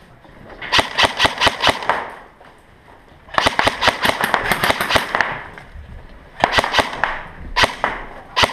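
Airsoft guns firing in rapid automatic bursts: one of about a second, a longer one of about two seconds, then shorter bursts and single shots near the end.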